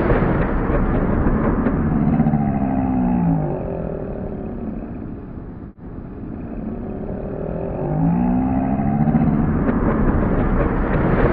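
Dodge Durango SUV driving past with engine and tyre noise. Its engine note falls in pitch and fades toward the middle, then the same sound plays backwards, rising and growing louder again, as in a rewound replay.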